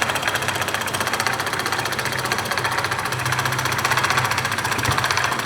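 Small 220V electric motor running steadily with a fast, even rattle over a low hum.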